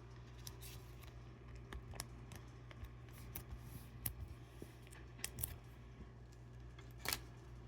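Faint rustling and scattered light clicks of a Pokémon trading card being handled and slid into a plastic card sleeve, over a steady low hum.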